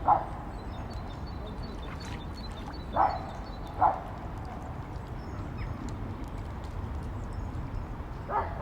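A dog barking: four single barks, two close together in the middle and one near the end, over a steady low rumble.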